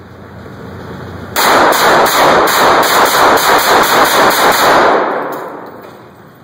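Rapid handgun fire: a string of more than a dozen shots, about four a second, starting about a second and a half in and stopping about five seconds in, echoing off the walls of an indoor range.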